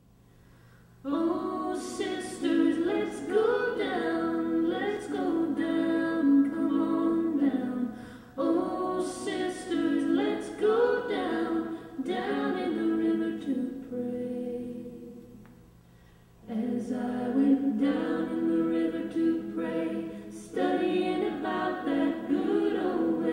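Unaccompanied choir singing in long held phrases. It starts about a second in, fades out about two-thirds of the way through, and comes back after a short gap.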